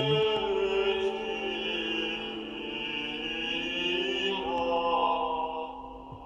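Gregorian chant: held, slowly moving sung lines that fade out near the end.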